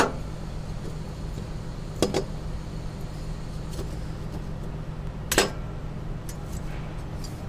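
Finned air-cooled cylinder sleeve being pushed down over the piston rings, giving three sharp metallic knocks a couple of seconds apart and a few faint ticks, over a steady low hum.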